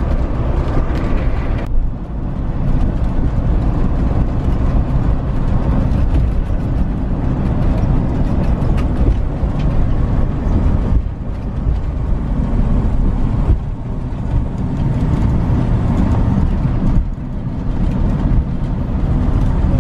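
Steady road and engine noise heard from inside a moving truck's cab, mostly a low rumble, with a few brief dips in loudness.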